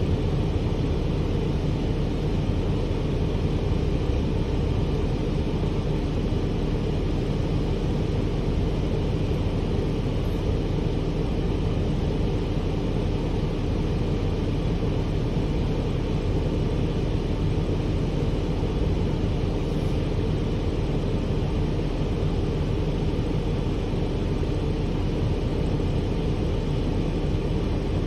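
Gillig Advantage transit bus engine idling steadily while the bus stands still, heard as an even low rumble from inside the passenger cabin.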